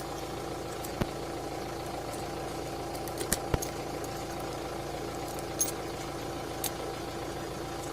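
A few short, sharp metallic clicks as the small parts of a motorcycle steering lock are handled, over a steady background hum.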